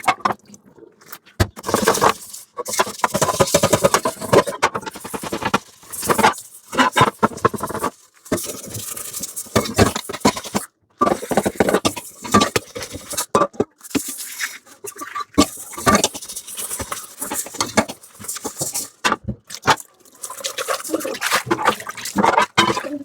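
Dishes being washed by hand in a sink: a stream of scrapes, knocks and clinks of dishware against each other and the sink, with water splashing and running at times.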